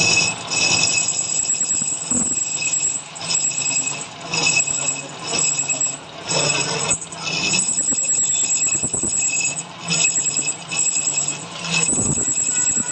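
Metal lathe cutting with a high-pitched ringing squeal from the tool on the workpiece, breaking off briefly and starting again about once a second, over the steady hum of the machine.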